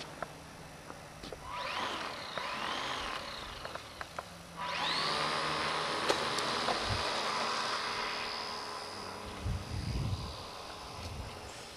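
RC Piper Cub model plane's motor and propeller whining: a short rising burst of throttle, then about five seconds in a jump to a steady full-throttle whine for the takeoff run and climb, slowly fading as the plane flies off. A few low thuds come near the end.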